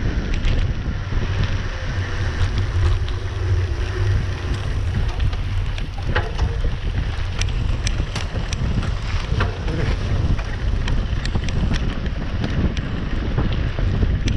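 Wind buffeting the microphone of a bike-mounted camera on a moving mountain bike, a steady low rumble with scattered clicks and rattles from the bike on the rough dirt road.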